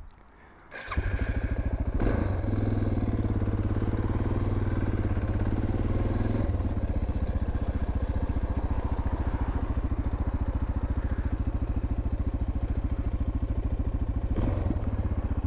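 Suzuki DR650's single-cylinder four-stroke engine starting up about a second in, then running at low speed with a steady, even pulse as the bike rides slowly.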